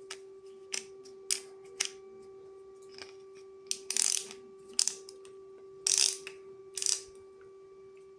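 Plastic ratcheting screwdriver being handled and tried: scattered sharp clicks and two short rasping runs of the ratchet about four and six seconds in. A steady hum sounds underneath.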